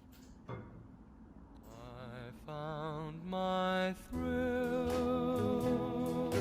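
Background music: a song with a singing voice holding long, wavering notes fades in about two seconds in, after a quiet start.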